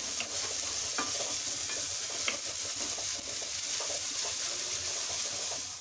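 Chopped onions sizzling steadily in hot oil and butter in a metal kadhai, stirred with a wooden spatula, with a few light scrapes and taps of the spatula against the pan.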